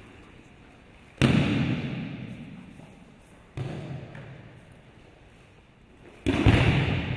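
Aikido breakfalls: the uke's body landing hard on tatami mats after throws, three heavy thuds about a second in, in the middle and near the end, the middle one softer. Each thud echoes briefly around the hall.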